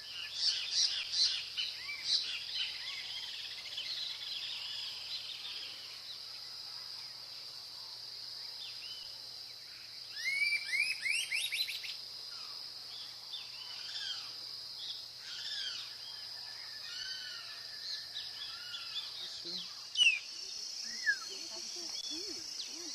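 Several wild birds chirping and calling over a steady, high insect drone, with a quick run of rising notes about ten seconds in and a couple of sharp, loud calls near the end.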